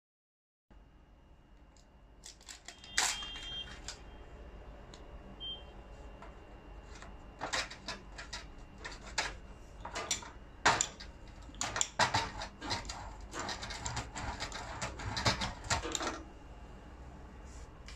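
Handling sounds of aluminium-foil-backed bitumen tape being stuck onto a corrugated metal roofing sheet: irregular crinkles, clicks and taps of foil, backing paper and hands on the sheet. These run from about two seconds in until a couple of seconds before the end, over a faint steady high tone.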